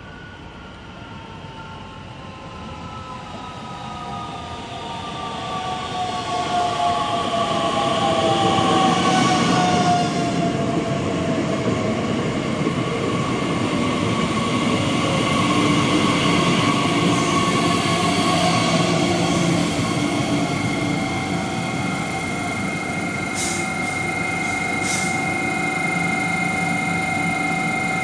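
Bombardier Talent 2 electric multiple unit (DB class 1442) pulling in and braking to a stop: several whining drive tones slide down in pitch as it slows, growing louder as it comes alongside. It then stands with a steady electrical hum, and two short hisses sound near the end.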